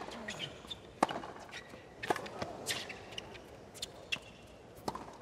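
Tennis rally on a hard court: sharp pops of the racket striking the ball, with the ball bouncing in between, a hit every second or so and a longer gap before the last one.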